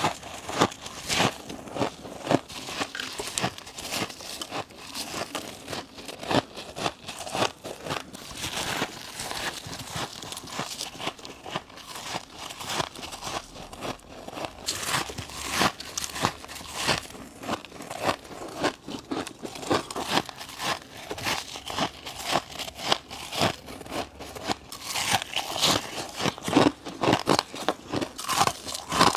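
Close-miked bites into crunchy frozen frost ice, freezer frost and thin humidifier frost, crackling and crunching between the teeth. A fresh crunchy bite comes about every second throughout.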